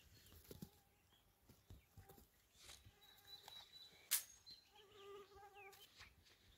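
Young pullets giving faint, drawn-out peeping calls several times, the longest held for just under a second near the end. A single sharp click about four seconds in.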